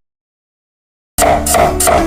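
Dead silence for about a second, then background music with a steady beat starts abruptly.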